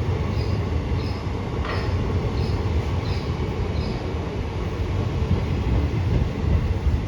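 Passenger train coaches rolling into a station with a steady low rumble. Short high squeaks from the wheels or brakes recur about every 0.7 s during the first half.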